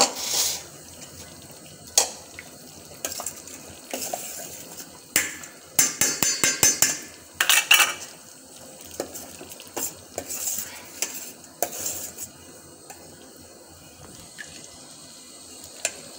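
Metal ladle clinking and knocking against a steel pot while scooping thick tamarind chutney out to serve: irregular knocks throughout, with a quick rattle of clicks about six seconds in.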